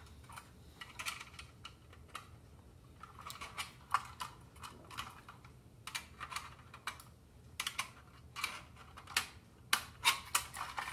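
Light, irregular clicks and taps of a thin screwdriver working against the toy robot's metal body and tabs as the front panel is levered away from the back.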